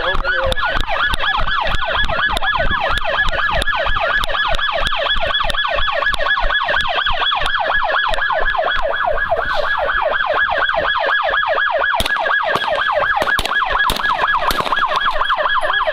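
Police car siren on its fast yelp setting, a rapid rising-and-falling wail repeating about four to five times a second without a break.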